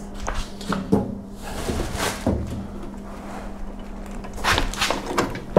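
Knocks, bumps and handling noises as the sheet-metal body of a Sonofresco 1 kg Profile coffee roaster is gripped and shifted before being lifted, with a cluster of knocks near the end.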